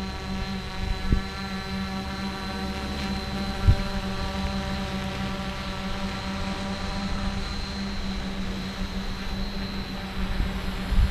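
Quadcopter's electric motors and propellers humming steadily while it hovers, a stack of even tones that waver only slightly. A few short low thumps break through, the loudest about four seconds in.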